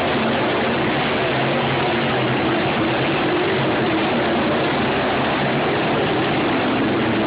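Several dirt-track race cars running together on the oval: a steady, loud, continuous din of engines, with the engine pitch drifting slowly as the cars circle.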